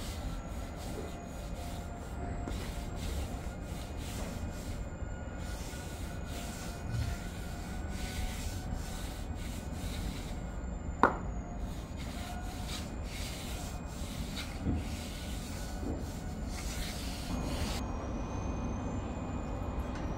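A small hand trowel scraping and smoothing damp moulding sand around a wooden pattern in a floor mould, in many short strokes over a steady low rumble. A sharp click about halfway through is the loudest sound.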